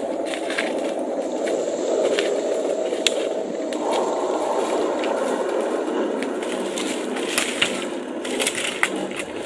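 Footsteps crunching and crackling on dry fallen bamboo leaves, with many scattered snaps that grow denser near the end, over a steady rushing noise.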